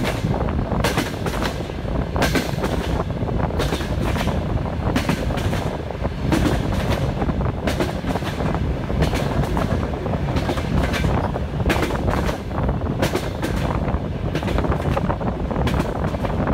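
Passenger train's wheels clattering over the rail joints at speed: many sharp knocks over the steady rumble of the moving carriage.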